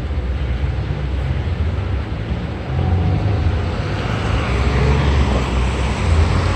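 Low, steady engine rumble from a large vehicle, getting louder a little under three seconds in.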